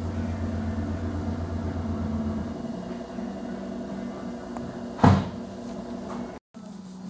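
A steady machine hum, which drops away about two and a half seconds in, and one sharp knock about five seconds in.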